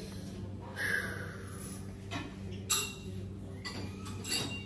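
Lounge ambience: a steady low hum under faint background voices, with a few short clinks and knocks.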